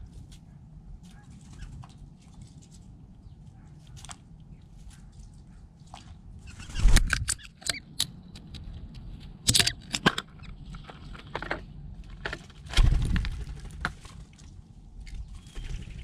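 A blue jay at a box of peanuts in the shell: light clicks and knocks of shells being picked over, with two louder bursts of wing-flapping about seven and thirteen seconds in. A low wind rumble runs underneath.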